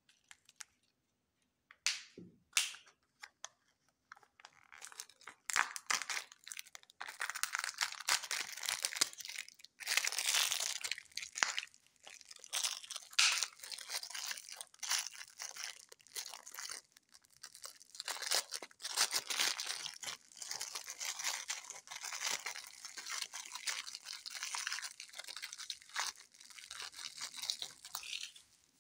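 Thin plastic toy packet from a Kinder Joy egg crinkling and tearing as it is handled and ripped open, a dense crackle. A few sharp clicks come before the crinkling starts.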